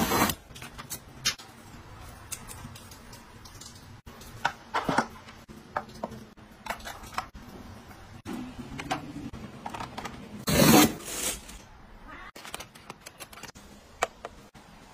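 Household gadgets being handled: a loud knock of a small axe striking a cardboard box at the start, then a string of small clicks, taps and knocks of plastic organisers and fittings. A short, loud rush of noise comes about ten and a half seconds in.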